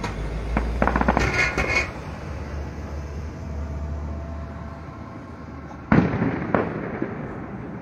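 Fireworks display: aerial shells bursting in the sky, with a quick run of crackling cracks about a second in, then a loud bang near six seconds followed by a second bang about half a second later.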